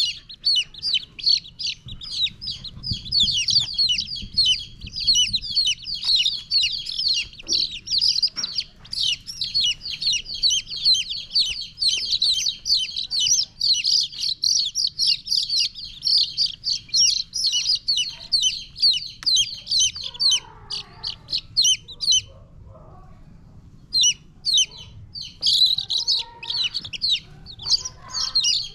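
A group of baby chicks peeping fast and continuously, a dense chorus of short high chirps. It breaks off for about two seconds about three-quarters of the way through, then starts again.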